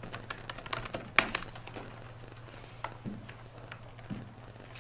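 Computer keyboard typing: many quick, irregular key clicks, with one louder click about a second in, over a low steady room hum.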